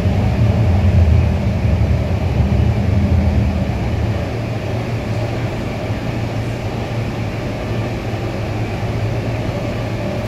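Cabin noise inside a Sydney Metro driverless train carriage: a steady low rumble, a little louder in the first four seconds and then even.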